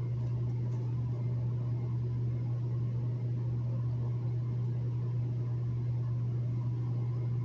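Steady low hum with a faint even hiss: room tone, with no other sound standing out.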